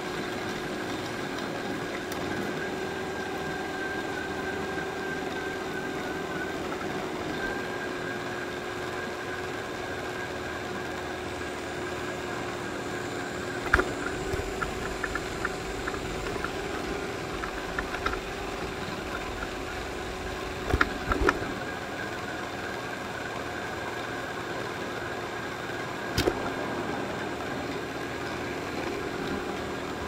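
Robot vacuum running, its fan and brush motors giving a steady whirring hum. A few sharp knocks and brief rattles break in around the middle and once more near the end.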